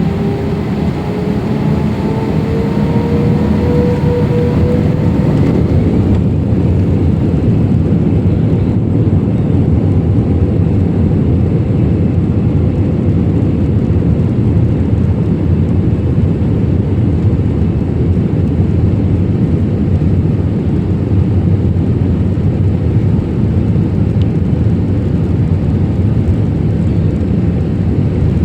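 Airbus A320 jet engines heard from inside the cabin at takeoff: a whine rising in pitch over the first five seconds or so, which then fades into a steady, loud rumble of engine and airflow.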